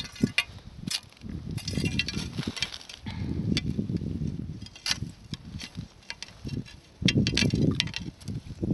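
Handling and rustling noise as a fishing line with a live fish on it is pulled up hand over hand through a hole in the ice. Irregular low rumbles and bumps come with scattered sharp clicks.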